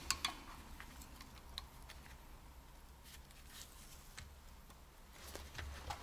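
A few faint, scattered clicks and light metal taps from a caliper being set to measure the inside of a driveshaft yoke, over a low steady hum.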